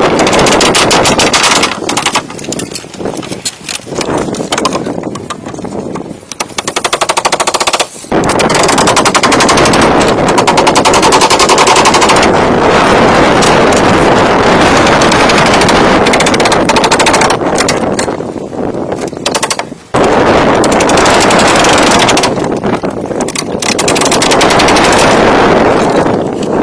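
A power tool working hardwood, running loud with a fast rapid-fire pulsing. It eases off twice, about two seconds in and again about two-thirds of the way through, then comes back to full strength.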